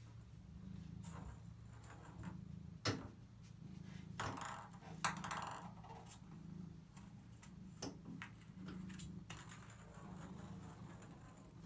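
Ping pong ball clicking and rolling against a bathtub as a cat bats it about: several sharp clicks, the loudest about three and five seconds in, with a short rattling roll between them. A cat's low, steady purr runs underneath.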